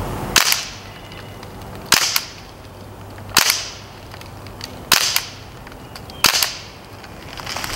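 Umarex Steel Strike CO2 BB rifle fired five single shots, evenly spaced about a second and a half apart, each a sharp pop with a short tail.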